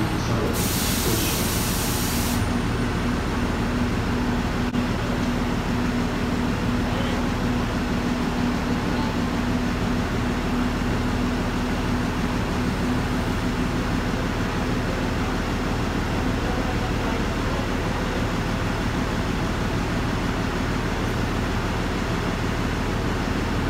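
MBTA city bus idling at the stop, a steady engine hum with a constant droning tone. About half a second in comes a burst of hiss lasting about two seconds.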